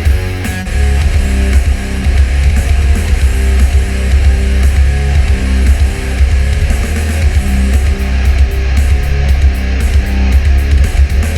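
Heavy metal music with distorted guitars over a heavy, booming bass, played back through a portable speaker with a subwoofer.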